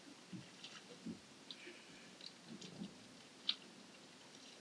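Faint scattered clicks and light rustling, with one sharper click about three and a half seconds in.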